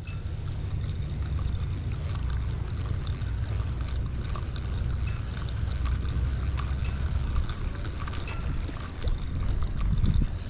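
Spinning reel being cranked steadily with light ticking, reeling a small croaker in over low wind rumble on the microphone. Water splashes near the end as the fish comes to the surface.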